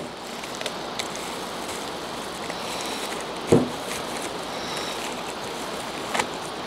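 Parchment paper rustling and crinkling as a block of cheese is rolled up in it on a table, with a few louder crackles, the loudest about halfway through, over a steady background rush.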